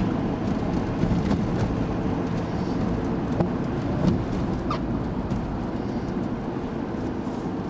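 Steady engine and road noise of a moving bus heard from the driver's cab, with a couple of light clicks about three and four seconds in.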